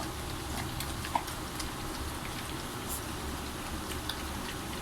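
Pitbull puppies eating from their food, a steady crackle of small wet clicks and crunches, with a brief faint squeak about a second in.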